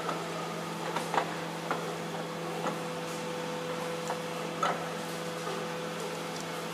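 Steady machine hum with a few short, light metallic clicks and knocks as metal parts of a welding machine are handled and adjusted by hand.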